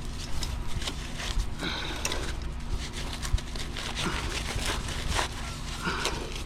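An engine running steadily, with irregular knocks and scrapes of concrete being placed and worked.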